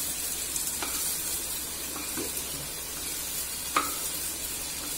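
Onion cubes sizzling in hot oil in a nonstick pan while a wooden spatula scrapes them out, with a few short knocks of the spatula against the pan.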